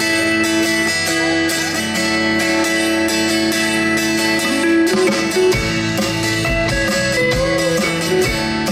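Live country band playing a song's instrumental intro, led by strummed acoustic guitar; deep low notes come in about halfway through.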